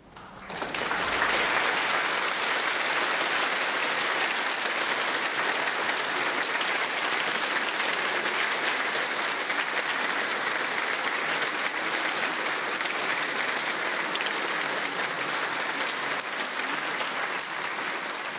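A large audience applauding: the clapping breaks out right at the start, swells to full within about a second, and then holds steady.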